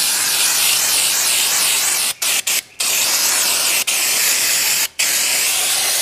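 Aerosol can of brake cleaner spraying: a loud, steady hiss, broken by three brief pauses close together about two seconds in and one more near five seconds.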